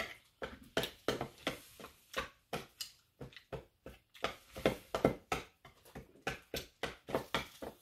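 Close-up eating sounds: irregular wet clicks and smacks of someone chewing roast chicken with her mouth, about three or four a second, along with a fork picking at the meat.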